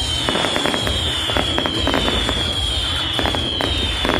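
Fireworks going off: a dense run of crackling pops and cracks over a low rumble, with a high whistle that falls in pitch and repeats about once a second.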